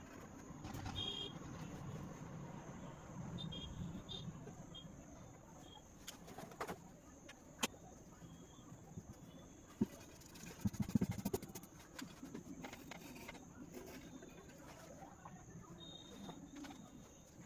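Faint handling of a drawing pen and pencils on paper. It gives a few sharp clicks, then a short clatter of clicks about ten to eleven seconds in, the loudest part. Faint short bird chirps come now and then.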